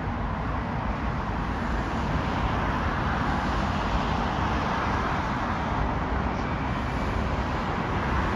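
Steady distant roar of an Emirates Airbus A380's jet engines during its landing roll, swelling slightly a couple of seconds in.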